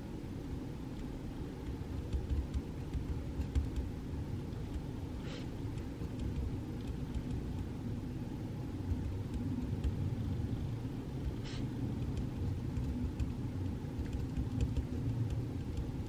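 Steady low background rumble in a study room, with two brief faint rustles about five and eleven seconds in.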